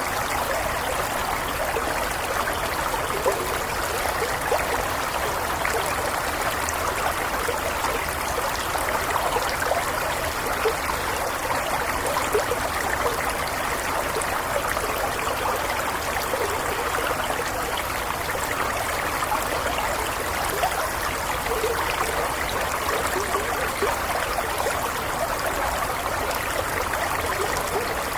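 Small stream flowing steadily over stones, a continuous burbling and trickling with no pauses.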